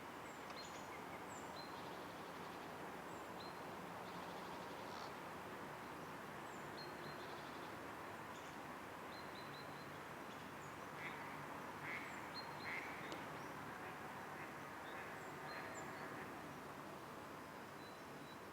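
Outdoor birdsong: many short, high chirps from small birds over a steady background hiss, with a few louder, harsher calls about eleven to thirteen seconds in.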